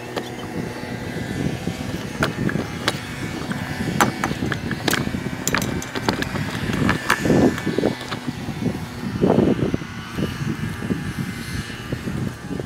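Golf cart driving along a paved cart path: a steady running noise with frequent rattles and knocks.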